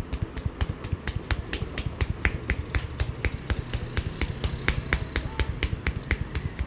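Percussive massage: a barber's hands striking in quick tapping strokes, about six sharp taps a second in an even rhythm.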